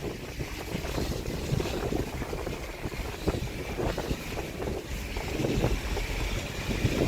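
Car driving, heard from inside the cabin: a steady rumble of engine and tyres, with wind rushing in through open windows and irregular knocks from bumps in the road.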